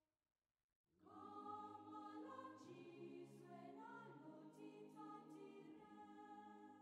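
Quiet choral music: a choir singing held chords. It comes in about a second in after a brief silence and fades out near the end.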